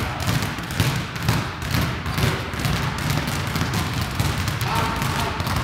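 Several basketballs dribbled at once on a gym floor: a dense, irregular patter of overlapping bounces.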